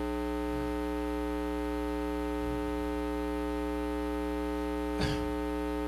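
Steady electrical mains hum, a stack of constant buzzing tones in the audio feed, with one brief short sound about five seconds in.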